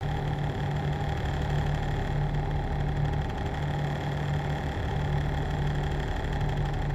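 Machinery running steadily: a continuous mechanical hum with a strong low drone that swells and eases slightly, plus fainter steady whining tones above it.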